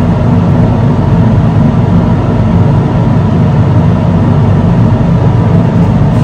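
Steady, loud low rumble of a moving vehicle, like road and engine noise.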